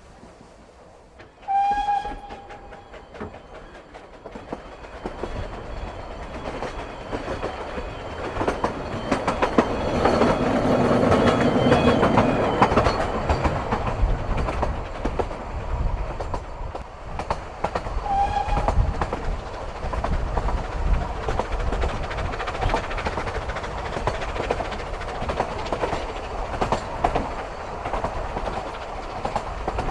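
Vale of Rheidol narrow-gauge steam locomotive No 7 Owain Glyndwr working a train along the line. Its whistle sounds once about a second and a half in and again briefly about two-thirds of the way through, over steady running noise that grows louder for a while in the middle.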